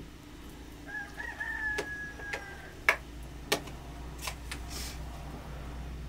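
A rooster crows once, one long call starting about a second in. Sharp clinks and scrapes of metal spoons against a steel plate follow; two of these clinks are the loudest sounds.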